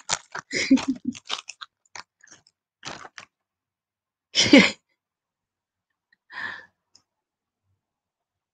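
Plastic packaging crinkling as it is handled, a run of short crackles over the first three seconds. A single louder, brief sound follows about four and a half seconds in, and a fainter one a couple of seconds later.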